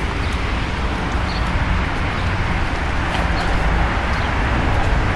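Steady outdoor background noise: a low, unsteady rumble under an even hiss, with no distinct events.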